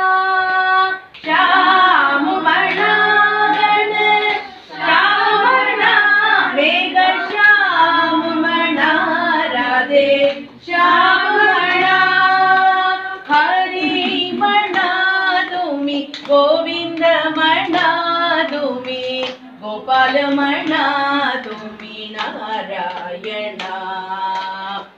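A group of women singing a Hindu devotional bhajan together, a chant to Radha and Krishna, in long sung phrases with short breaks between them.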